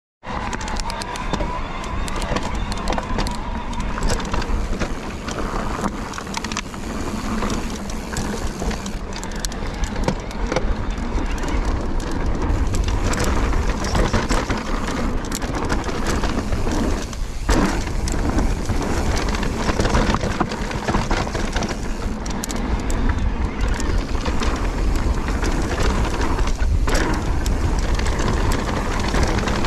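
Mountain bike riding fast down a dirt forest trail: tyres rumbling over the ground and the bike clicking and rattling over bumps, with heavy wind noise on the camera microphone.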